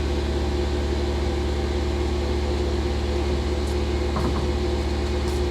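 A machine running with a steady low hum and a held tone; it cuts off abruptly at the end.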